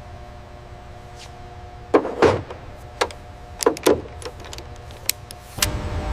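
Steady machine hum with a series of sharp knocks and clacks in the middle, like hard parts being handled and set down. A louder low rumble starts near the end.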